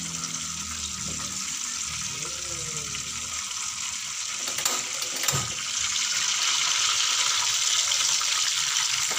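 Tomato pieces frying in hot oil in a wok: a steady sizzle that grows louder about six seconds in, with two short knocks about halfway through.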